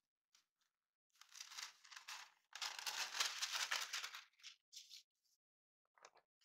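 A large sheet of paper rustling and crinkling as it is handled and lifted away. There are two main stretches of about a second and a half each, then a few short rustles.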